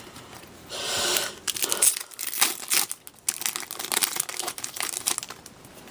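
Plastic wrapper of a 14-15 Upper Deck Series 1 hockey card pack crinkling as it is torn open. A longer rustle comes about a second in, followed by quick irregular crackles as the wrapper is handled.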